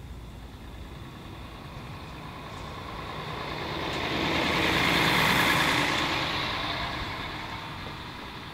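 A city bus driving past, its engine and tyre noise growing louder to a peak about five seconds in and then fading away.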